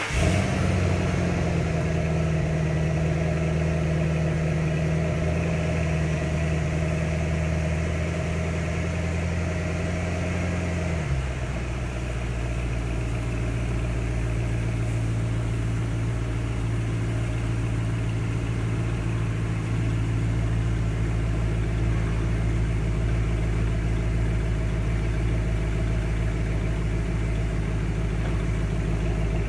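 2009 Ford Mustang GT's 4.6-litre three-valve V8 through its stock exhaust, idling steadily just after start-up. The idle sits high at first, then drops to a lower, steady idle about eleven seconds in as the start-up fast idle settles.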